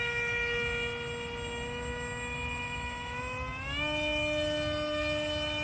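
Small RC boat's electric motor and propeller whining at a steady pitch, stepping up to a higher pitch about three and a half seconds in as the throttle is opened further.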